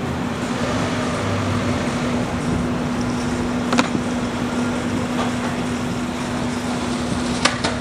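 Steady running noise of a car moving slowly, with a steady low hum throughout. Two short clicks, one about halfway through and one near the end.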